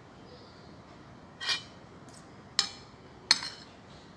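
Metal spoon and fork clinking against a ceramic plate while scooping rice: three sharp clinks with a short ring, the first a little longer, like a scrape.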